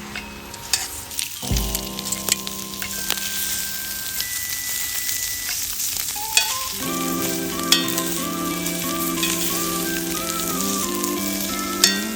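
Food sizzling and spitting on a hot iron griddle plate over a burning log fire, with sharp crackles throughout. Background music plays along with it.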